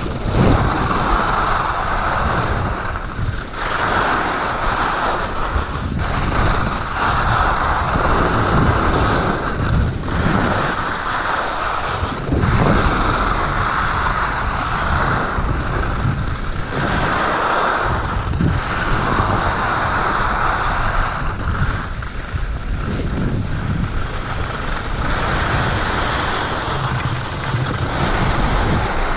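Skis scraping and sliding over packed snow, with wind rushing over the microphone. The scraping swells and fades every two to three seconds as the skier turns.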